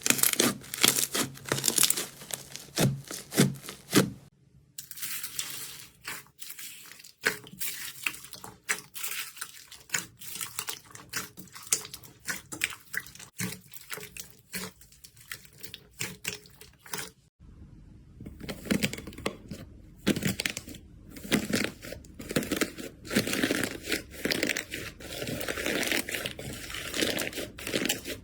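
Slime worked by hand: sticky crackling, popping and squishing in dense, irregular bursts. The sound changes abruptly about four and seventeen seconds in, as one slime gives way to another.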